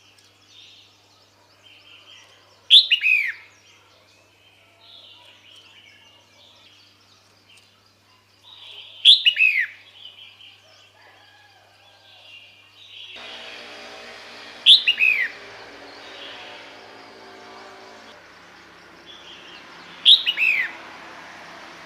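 Female red-whiskered bulbul calling: four short, loud, downward-slurred calls about every five to six seconds, with softer chirps between them. These are the calls used to attract a male.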